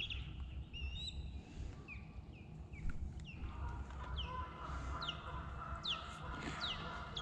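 North American ospreys calling: a series of short, sharp whistled notes, each falling in pitch, repeated irregularly. These are territorial calls as two birds contest the nest site.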